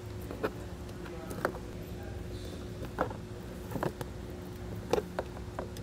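Several short, sharp clicks of a hand wire crimper working a blue three-way butt connector onto wires, over a steady low hum.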